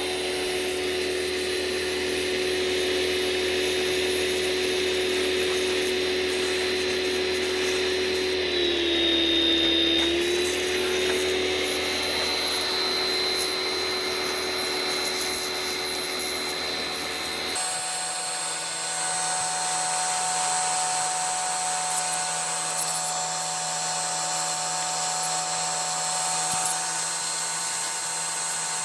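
Handheld electric power tool running at a steady whine; about nine seconds in its pitch dips for a couple of seconds as it is loaded, then recovers. About two-thirds of the way through the sound switches abruptly to a higher-pitched tool whine that runs steadily.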